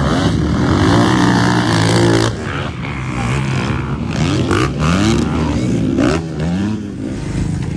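Motocross dirt bikes racing, their engines revving up and dropping back as riders accelerate out of turns and over jumps. The pitch climbs several times in quick succession in the second half.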